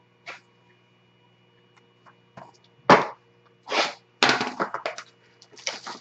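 Plastic shrink-wrap on a sealed box of baseball cards crinkling as the box is handled. The rustles come in short bursts, one loud one about three seconds in, then more and more often.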